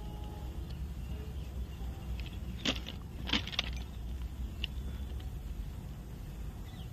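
Steady low outdoor rumble, with a few short, sharp clicks near the middle.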